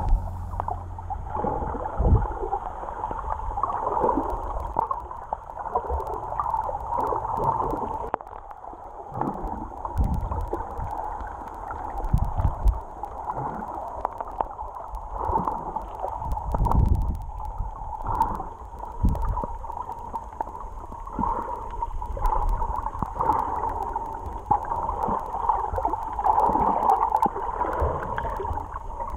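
Muffled underwater sound picked up through an action camera's waterproof housing: water sloshing and surging, with irregular low thumps over a steady hum.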